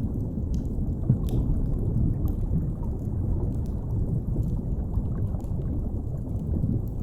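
Steady deep underwater rumble from a sea-depths ambience, with sparse faint crackles of a wood fire scattered through it.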